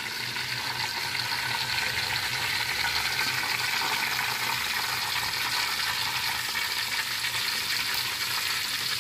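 Chicken pieces deep-frying in hot oil in a wok, giving a steady sizzle.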